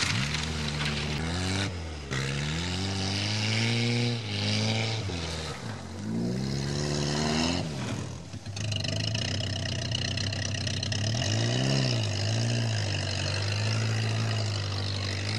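Škoda 130's rear-mounted four-cylinder engine revving up and down repeatedly as the car is driven, then running at a steadier speed with two short blips of throttle. The owner says this engine doesn't want to run properly.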